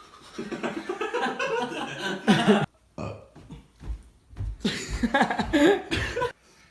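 A person belching: a long, rough belch, then a few short sounds, then a second long belch near the end.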